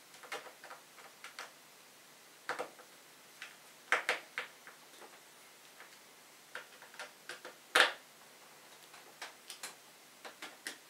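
Screwdriver tightening the captive screws of a metal hard-drive sled onto a hard disk: irregular sharp metallic clicks and ticks as the tip turns in the screw heads, with one louder click about two-thirds of the way through.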